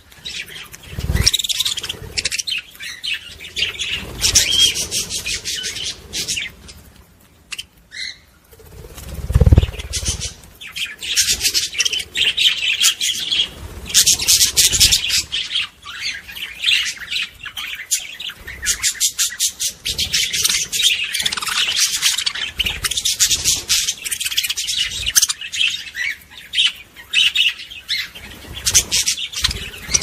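Small cage birds chirping and twittering in rapid, high, overlapping calls. A short quieter spell comes about eight seconds in, followed by a brief low thump.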